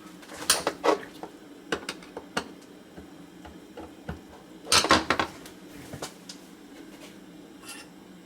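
Small metal tools and parts clinking and knocking as they are handled on a workbench, in scattered sharp clicks with a louder cluster of knocks about five seconds in.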